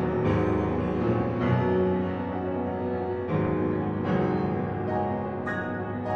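Upright piano being played: chords and notes struck every second or two, each ringing on into the next.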